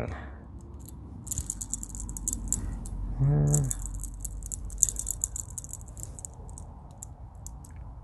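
Garage door extension-spring pulley spun by hand, its bearing giving a fine, rapid high rattle in two runs, one of about a second and a half and one of about three seconds. The bearing is running smoothly, with no sign of damage.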